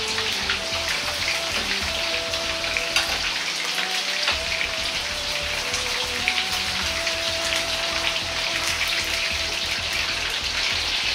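Starch-coated chicken pieces deep-frying in hot oil in a wok, a steady sizzle dense with small crackling pops.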